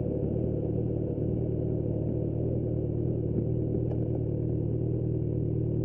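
Kawasaki Z900 SE inline-four, with an Austin Racing exhaust, idling steadily after the revs have dropped. The sound cuts off abruptly near the end.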